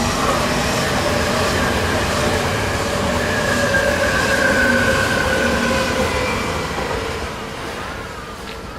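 Odakyu electric commuter train passing close by, its wheels rumbling on the rails with a high whine over the top. The sound swells to its loudest midway and fades over the last few seconds.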